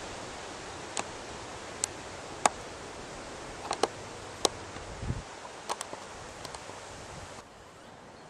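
Steady rustling hiss with scattered sharp ticks as tall meadow grass brushes against a handheld camera, with one short low thump about five seconds in. The hiss drops suddenly near the end.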